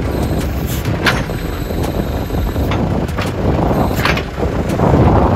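Heavy vehicle engine running loudly, with several short sharper sounds over the rumble and a louder swell near the end.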